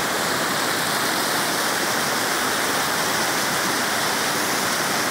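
Floodwater from an overflowing reservoir pouring over its spillway and rushing downstream in a steady, churning torrent.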